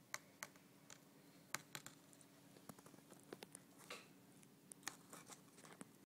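Handling noise from a handheld camera: scattered faint clicks and a few light scrapes, irregular, over near silence.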